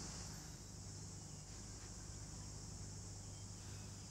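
Faint, steady chorus of insects, with a low steady hum underneath.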